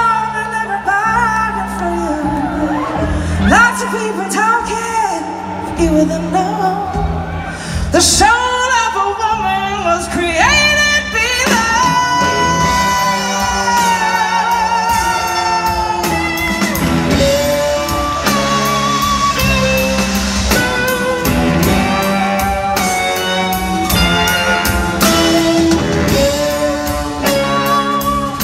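Live rock band playing in a large hall, with a woman singing long, sliding vocal lines over bass and drums. About twelve seconds in the band grows fuller, with guitar and a steady, driving rhythm.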